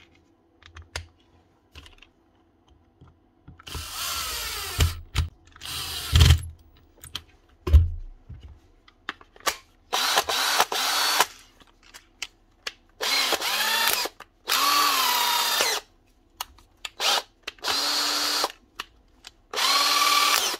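A repaired cordless drill's motor test-run by trigger in about seven short bursts, spinning up and winding down each time, with small clicks and a few knocks between the runs, the loudest a knock a little past the quarter-way mark.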